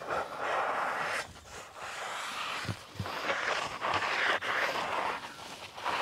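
Hands rubbing soapy water into the gap between a 4x4 tyre's bead and the wheel rim to lubricate the bead. The sound comes as a series of wet swishing strokes, with a few light knocks.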